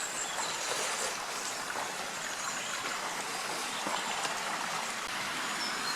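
Water pouring over a small river weir, a steady, even rush with no breaks.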